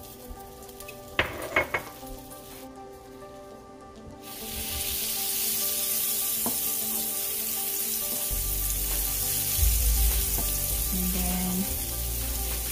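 Butter melting in a hot nonstick frying pan, sizzling and foaming as a wooden spatula pushes the cube around. The sizzle starts suddenly about four seconds in and then holds steady.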